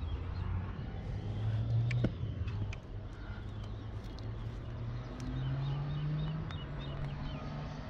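A low engine hum, its pitch drifting up and down, with a run of short, evenly spaced high chirps from a bird and a few sharp clicks.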